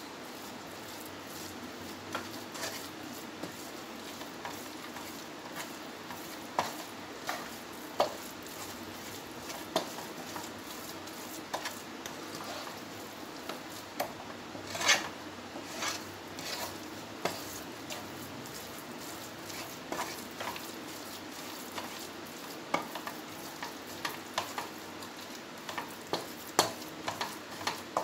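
Wooden spatula stirring and scraping a coconut, sugar and ghee mixture in a non-stick frying pan, with irregular taps and knocks against the pan, the loudest about halfway through. Under it a low, steady sizzle of the mixture cooking as the sugar melts.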